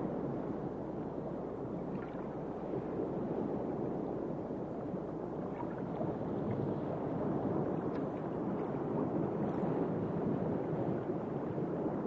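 Steady low rushing of water heard underwater, with a few faint ticks now and then.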